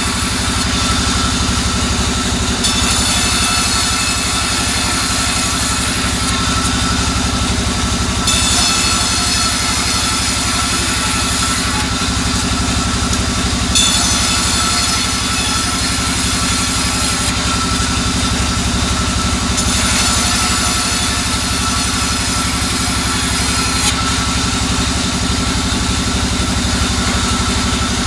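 Band sawmill running with a steady drone while soft albasia wood is pushed through the blade. A high cutting hiss comes in four times, each for three or four seconds, about every six seconds.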